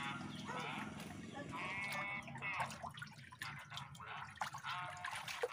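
Shallow muddy pond water splashing and dripping as hands grab and lift large catfish, with faint bleating calls in the background.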